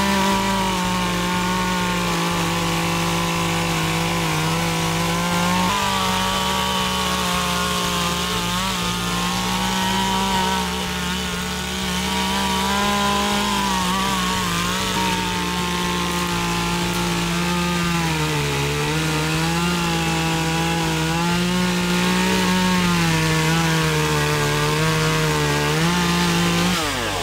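Chainsaw running at high revs while cutting through a thick tree limb, its engine note sagging and recovering as the chain bites into the wood, then dropping off right at the end.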